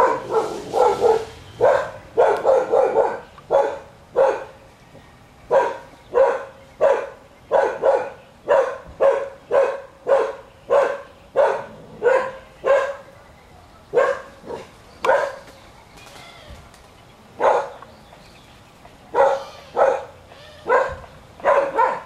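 A dog barking repeatedly, short sharp barks about one or two a second, with a few longer pauses in the second half.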